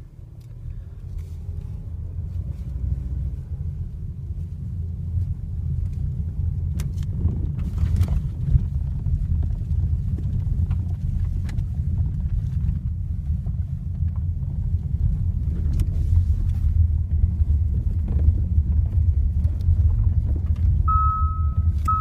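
Kia Ceed JD driving over small bumps: a steady low road rumble with occasional sharp knocks. The knocks come from the steering and resemble worn stabilizer links, but the owner has ruled out the suspension after four diagnostics. An electronic beeping tone sounds near the end.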